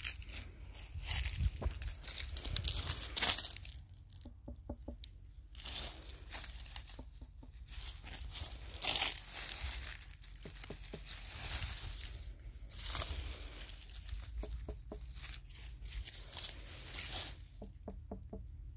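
Fingers knocking and flicking on watermelons to test their ripeness: about five short groups of quick taps, a few seconds apart. Between them comes loud rustling and crackling of the leafy vines as they are pushed aside.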